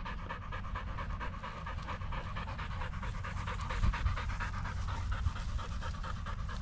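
A dog panting rapidly and steadily, out of breath from rough play, over a low rumble.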